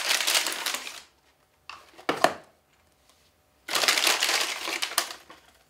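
Plastic packaging crinkling and tearing as it is pulled open by hand, in two long bouts with a few short crackles between.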